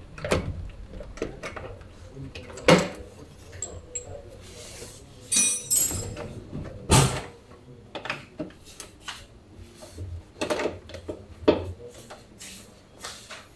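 Irregular knocks, clicks and metallic clinks of hard objects being handled, spaced a second or so apart, with one clink about five and a half seconds in that rings briefly.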